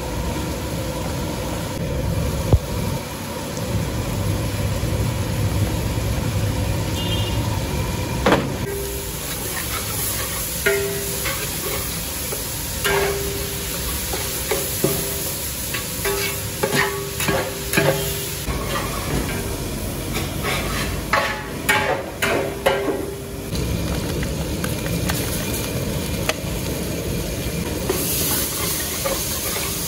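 Shallots, green chillies and mint leaves sizzling in hot oil in a large metal cooking pot, while a long metal ladle stirs them. The ladle scrapes and clicks against the pot in quick bursts from about eight seconds in until a few seconds past the middle, over a steady sizzle.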